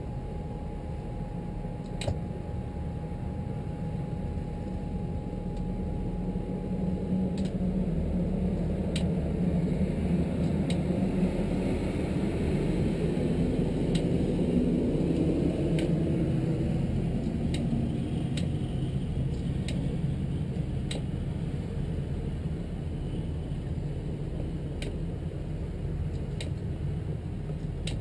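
A 1998 Sea Ray 330 Sundancer's engines running at low speed, a steady low rumble that swells a little in the middle and eases again, with scattered sharp ticks over it.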